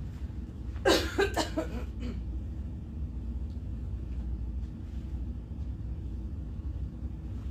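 A steady low hum fills the store, with a brief cluster of several sharp, hissy sounds about a second in.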